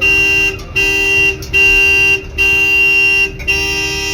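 An electric horn-like tone sounding in repeated on-off bursts, each about half a second to a second long, at the same pitch every time.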